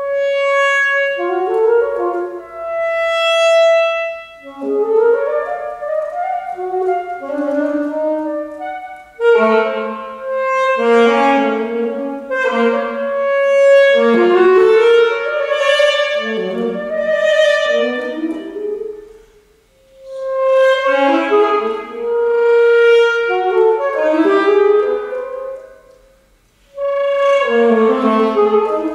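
Unaccompanied solo saxophone playing a single melodic line of held and moving notes, in phrases broken by short breath pauses.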